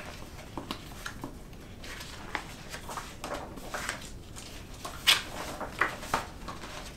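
Pages of a board-game rulebook being turned one after another, paper rustling and swishing in short strokes, the loudest about five seconds in.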